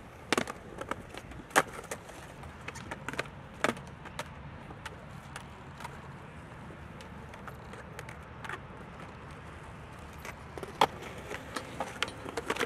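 Skateboard clacks on concrete: sharp pops and board impacts from trick attempts, the loudest about a second and a half in, a few more near the start and around three and a half seconds. After a quieter stretch with a low steady background hum, there is another cluster of clacks near the end as the board comes down and clatters on the concrete.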